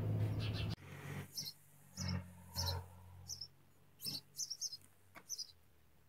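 Nestling birds in a wooden nest box chirping: short, high cheeps coming singly and in quick clusters, about a dozen over several seconds. A steady low hum cuts off abruptly under a second in.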